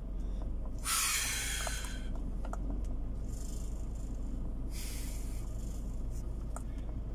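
Low, steady rumble of a truck's engine heard from inside the cab, with three short hissing bursts of about a second each, the first about a second in.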